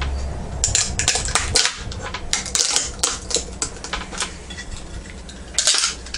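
Aluminum heat sinks on a computer power supply's circuit board being wrenched by hand, giving irregular metallic clicks and rattles, with a louder cluster of knocks near the end. The heat sinks are soldered to the board and do not break free.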